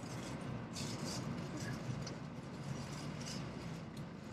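Steady low rumble and hiss inside a Shinkansen bullet train's cabin as the train rolls slowly alongside a station platform.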